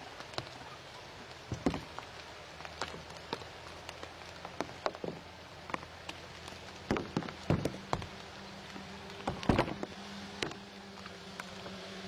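Raindrops falling on leaves and dry reeds, irregular ticks and taps with a few louder clusters of drops, over a faint steady low hum.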